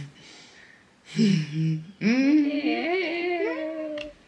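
Eerie humming: a short low hum about a second in, then a long wavering hummed tone of about two seconds, with a second, higher pitch gliding upward above it.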